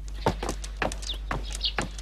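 Footsteps walking at a steady pace, about two a second, with small birds chirping a few times.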